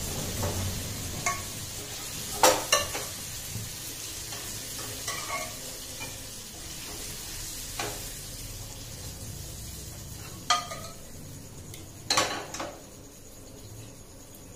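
A metal ladle scooping dal from a pressure cooker and stirring it into a kadhai over a gas flame, with a steady sizzle underneath. The ladle clinks sharply against the pot rims about six times.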